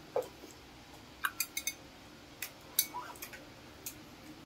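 A scattering of about eight sharp, light clicks and ticks, with two short squeaky chirps among them, over a quiet room background.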